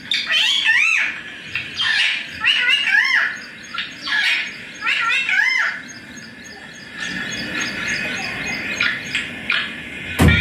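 Indian ringneck parakeet calling: three bursts of quick, rising-and-falling squawks about two and a half seconds apart, then softer chatter. A sharp knock near the end.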